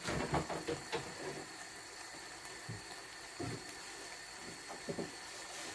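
Thick beef stew simmering in a pan, bubbling with a cluster of small pops in the first second or so and scattered single pops after, over a faint steady hiss.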